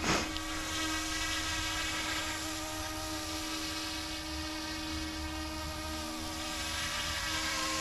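YXZNRC F09-S electric RC helicopter in flight: a steady buzzing whine from its brushless direct-drive rotor motor and spinning rotors, its pitch wavering slightly.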